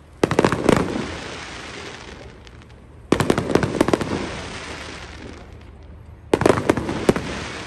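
Aerial fireworks bursting overhead in three volleys of sharp bangs and crackles about three seconds apart, each dying away over a couple of seconds. The fireworks are being set off by a fireworks shop that is on fire.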